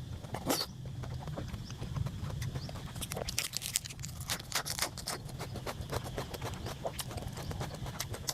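A person chewing and eating noisily close to the microphone: a run of irregular wet clicks and smacks, several a second, over a steady low hum.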